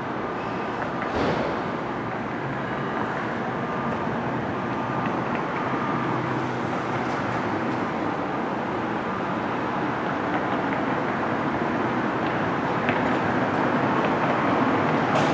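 Steady rumbling noise of a moving vehicle, with a brief knock about a second in.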